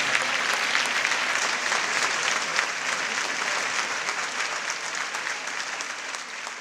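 Concert audience applauding, a dense steady clapping that fades out gradually over the last few seconds.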